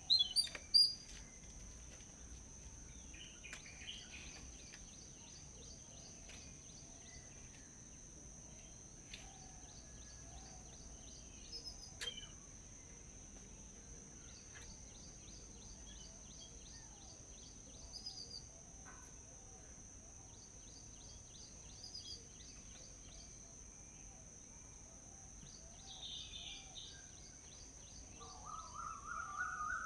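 Wild birds chirping and calling on and off, short scattered notes over a steady high-pitched insect drone, with a louder rising run of calls near the end.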